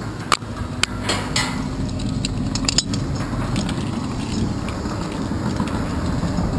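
Climbing hardware clinking against a steel lattice tower as the climber moves his carabiner and grips the members: several sharp metallic clicks in the first three seconds, over a steady low rumble of wind on the microphone.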